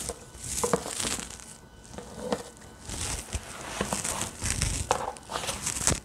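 Rustling and scraping of a cardboard Hermès gift box being unwrapped: the ribbon slides loose and the box is handled, in a run of short rustles with a few light clicks.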